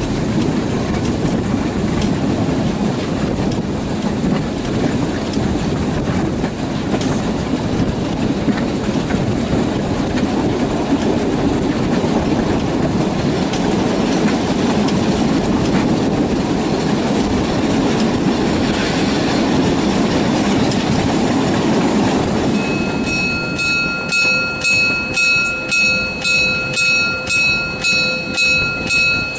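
Narrow-gauge steam locomotive 99 731 and its train running: a loud, even rumble of wheels and running gear. About three-quarters of the way in the rumble drops away, and a steady high ringing tone takes over, pulsing about twice a second.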